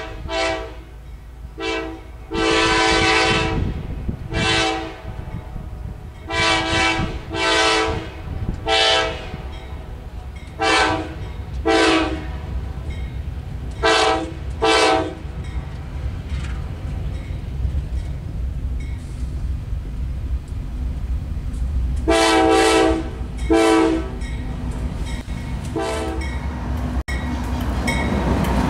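Diesel freight locomotive's air horn sounding a long series of short and long blasts, one held for nearly two seconds, over the low, steady rumble of the approaching locomotives. Near the end the rumble and wheel noise grow loud as the train passes close.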